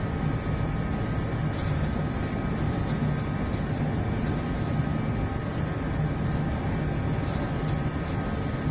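Steady, unchanging rumble of a bulk carrier under way at sea: a low machinery hum under a noisy rush of wind and water.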